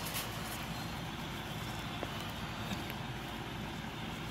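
Steady hum and whoosh of an outdoor air conditioning unit running, with a few faint clicks over it.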